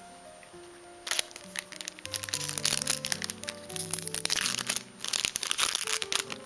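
Crinkling foil wrapper of a Yu-Gi-Oh! trading card booster pack, crackling in bursts as it is torn open and the cards are slid out, starting about a second in. Background music plays throughout.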